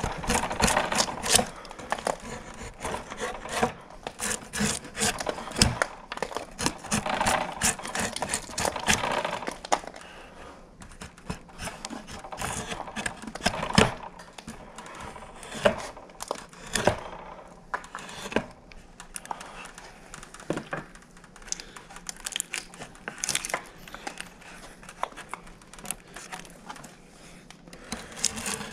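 A draw knife peeling bark off a small log: repeated rough scraping strokes of the blade along the wood, with sharp knocks in between. The strokes are busier through roughly the first ten seconds and sparser after that.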